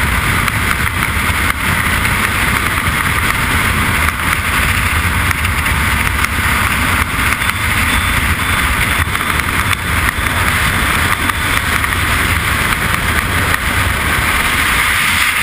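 Freefall wind rushing over a helmet-mounted camera's microphone: a loud, steady rumble and hiss that never lets up.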